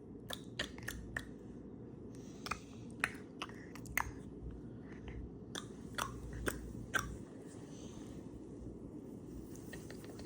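Soft, scattered clicks and taps, about a dozen over the first seven seconds, over a faint steady room hum.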